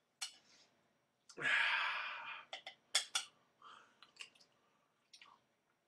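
A long breath out lasting about a second, then a few sharp clicks of a fork against a steel pot and soft mouth sounds of eating hot macaroni and cheese.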